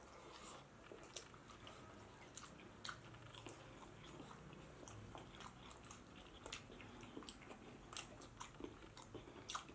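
A person chewing and biting a mouthful of pork biryani and rice, heard as faint, scattered wet mouth clicks.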